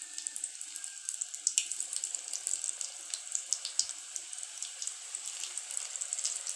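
Samosa deep-frying in hot oil: a steady sizzle with frequent sharp crackles and pops.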